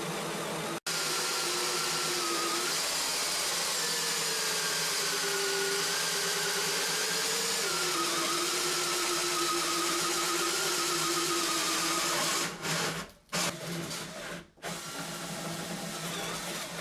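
Power drill turning a large hole saw through a wooden door, running at a steady whine whose pitch sags slightly under load. Near the end it stops and starts in a few short bursts as the big lockset hole is finished.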